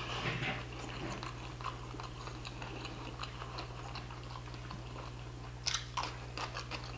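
Close-up chewing of food: soft wet mouth clicks, with a few sharper crunchy clicks near the end. A steady low hum runs underneath.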